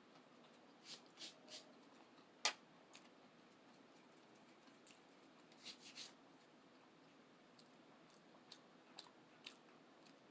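Faint chewing and mouth clicks of someone eating a McDonald's breakfast sandwich or hash browns close to the microphone, with a scatter of short clicks and one sharper click about two and a half seconds in.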